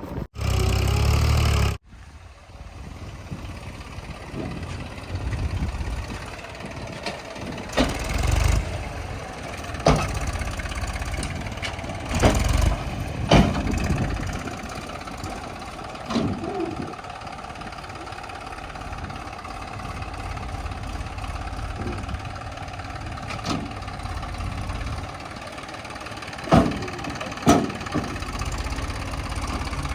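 Diesel engine of a JCB 3DX backhoe loader running steadily while it digs and loads soil, with scattered knocks and clanks every few seconds. A loud rush of noise in the first two seconds cuts off abruptly.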